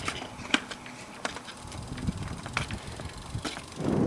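A BMX bike being handled: a few scattered light clicks and ticks from its parts. Near the end, wind on the microphone comes up.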